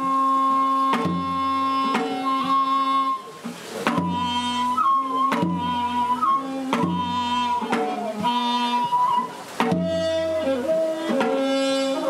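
Korean traditional instrumental music: a held melody of long notes that slide and bend in pitch, over drum strokes about every second and a half.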